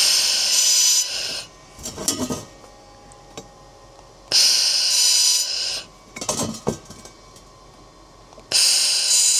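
Handheld laser welder firing three times, each a hissing burst of about a second and a half with quiet gaps between, tacking a stainless exhaust silencer. A few light knocks of handling fall in the gaps.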